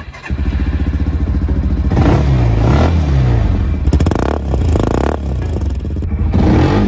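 Small petrol engine of a kids' RZR ML 300 UTV buggy starting up and catching almost at once, then revved up and down several times.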